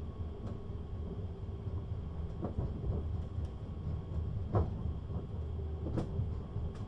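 Siemens Desiro HC electric multiple unit standing at the platform, running with a steady low hum and a faint steady whine above it. A few short knocks and clicks break in, the clearest a little past the middle.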